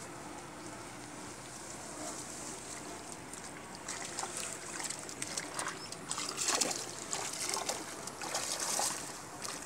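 Irregular wet rustling and squelching as hands pick small fish out of mud and water-hyacinth weed, growing busier about four seconds in.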